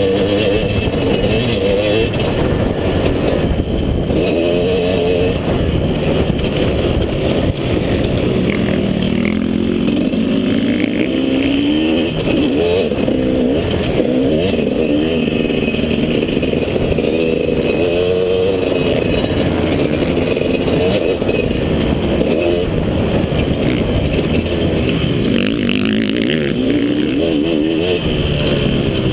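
Motocross bike engine heard from on board, revving up and falling back again and again as the rider opens and closes the throttle through the corners and straights of a dirt track.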